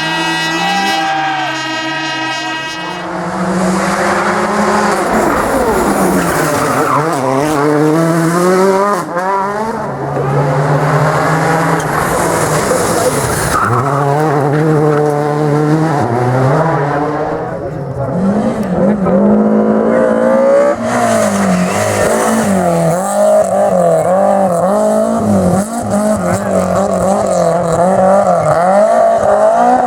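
Rally car engines held at a steady note for the first few seconds, then revved hard, rising and falling in pitch again and again, with tyre squeal as the cars are thrown around in show driving.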